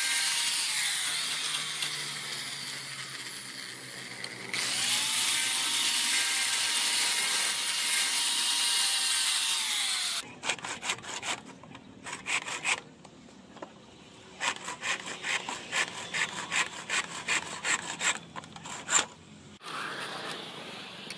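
Angle grinder with a sanding disc running and grinding a small steel ring held in pliers, a steady motor whine over the grinding noise, louder after a short dip. About halfway through it gives way to a hand file rasping a wooden knife handle in quick, regular strokes, about two to three a second.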